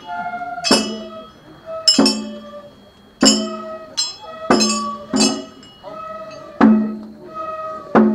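Japanese festival hayashi music played live on a hoko float: sharp struck percussion with a ringing, metallic clink about once a second, and a held melody line that changes pitch between the strikes.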